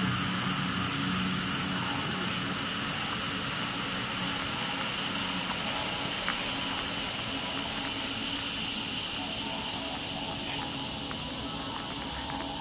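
Steady rushing noise with a faint, even high tone running through it, holding level without any rhythm.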